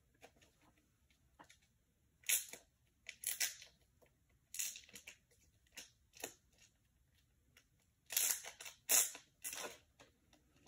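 A plastic card-pack wrapper being crinkled and torn open, in a series of short crackling bursts with the loudest near the end.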